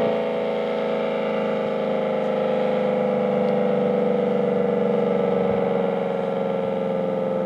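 Federal Signal SD-10 dual-tone outdoor warning siren sounding a steady alert tone, a chord whose pitch sags slightly while its loudness swells and fades a little, during a routine siren test.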